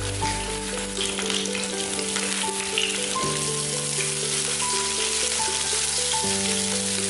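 Hot oil sizzling steadily as black pepper salmon balls fry, under background music with held notes and a bass line.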